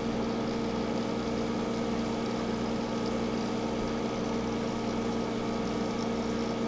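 Aquarium pump equipment humming steadily, a few fixed tones over a hiss, as it circulates and aerates the tank water.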